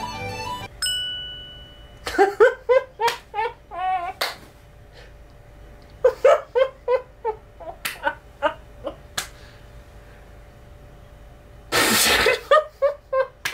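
A short chime about a second in, then quick runs of short, high-pitched voice syllables, with a few sharp clicks and a brief burst of hiss near the end.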